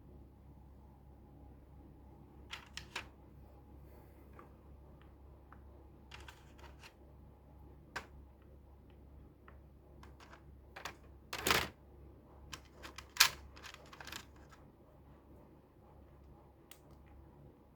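Mechanical keyboard built on a C8 kit with Tori switches and KBB Izakaya keycaps, keys pressed one or a few at a time with pauses between rather than steady typing. The loudest clacks come about eleven and thirteen seconds in.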